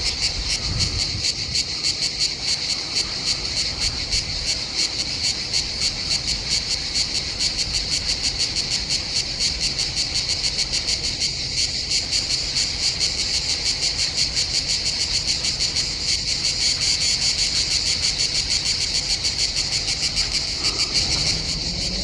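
Cicada singing: a high buzz made of rapid, even pulses.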